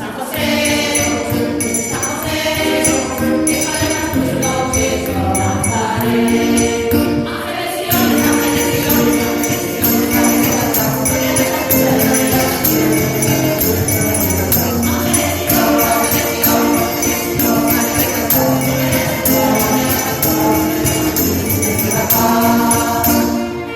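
Choir singing a Spanish Christmas carol (villancico) with jingling percussion, the singing and jingles growing fuller about a third of the way in.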